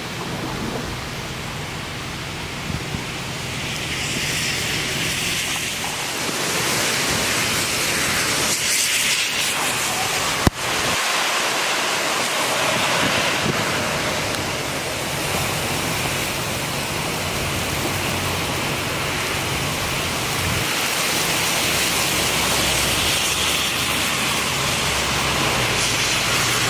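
Heavy hurricane rain and gusting wind, a steady hiss that swells and eases with the gusts, with wind rumbling on the microphone. A single sharp click about ten seconds in.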